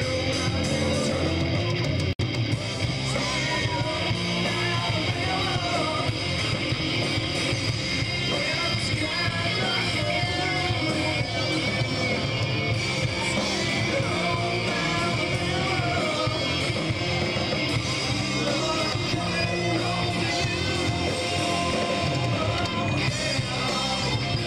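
Live rock band playing loud, with electric guitar and a singing voice in the mix. The sound drops out for a moment about two seconds in.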